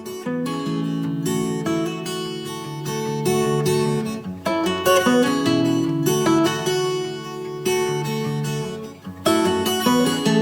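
Outro music: acoustic guitar strumming chords, starting abruptly just before and running on steadily.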